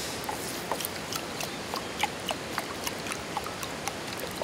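Water poured from a plastic bottle onto rice in an aluminium kama rice pot, with small irregular splashes and glugs, over the steady rush of a mountain stream.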